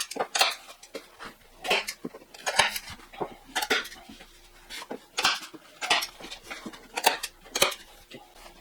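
Excess rubber pond liner being cut away, a short rasping cutting stroke about once a second, irregularly spaced.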